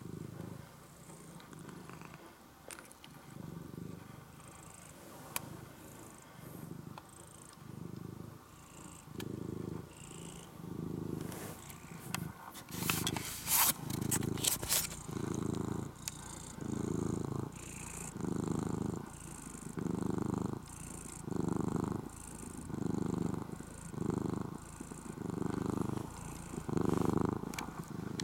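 Ginger-and-white tabby cat purring close up, in a steady rhythm of one purr about every second and a half, louder in the second half. A burst of clicks and rustling comes about halfway through.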